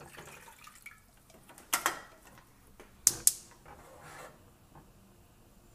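Water poured from a plastic baby bottle into a stainless steel saucepan, followed by clinks and knocks of the cookware; the loudest are two sharp knocks close together about three seconds in.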